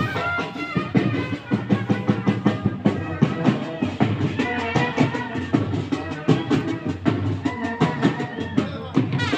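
Indian wedding music: loud drums beating fast under a melody line.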